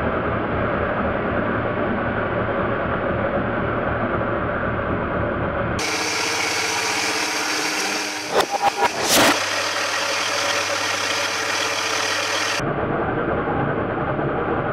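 Craftsman wood lathe motor running with a steady hum as it spins a wooden spindle. A little past halfway, a quick clatter of hard wooden knocks over about a second is the tool rest striking the spinning spindle and the wood breaking loose.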